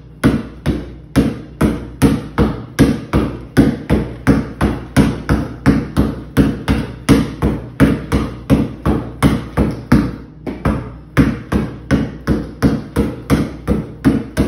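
A basketball dribbled hard on a concrete floor in quick crossovers, a steady run of sharp bounces about two and a half a second, with one short break about two-thirds of the way through.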